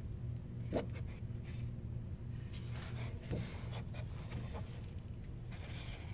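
Stiff paper rustling and crinkling in scattered short bursts as a large folded lyric sheet is unfolded and handled, over a steady low hum.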